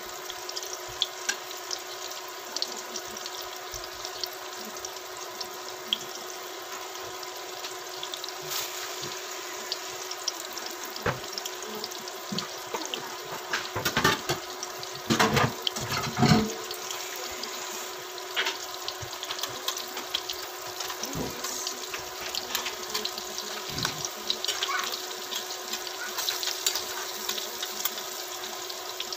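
Breaded cabbage rolls sizzling and crackling in shallow frying oil, a dense steady crackle over a faint steady hum, with a few louder pops and spatters about halfway through.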